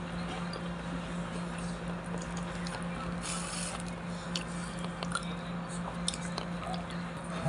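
Biting into and chewing a fried banana turon (banana spring roll), with a few crisp crackles of the fried wrapper about three seconds in. A steady low hum runs underneath.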